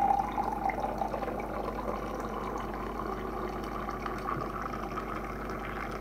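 Boiling water poured from a kettle into a mug over a tea bag, a steady stream whose pitch creeps up as the mug fills, then stops.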